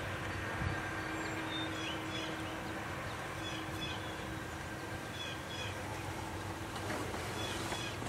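Outdoor ambience: a steady low hum under an even background hiss, with faint, scattered short chirps of distant songbirds throughout.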